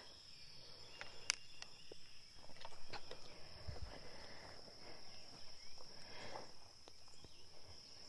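A steady, high-pitched insect chorus of crickets, faint throughout, with scattered light rustles and clicks as someone walks through the garden.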